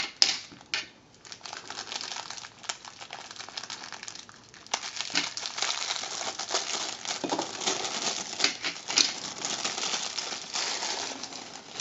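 Small clear plastic bag crinkling and rustling in the hands, with small clicks as the electronic components inside shift against each other; quieter for a moment about a second in.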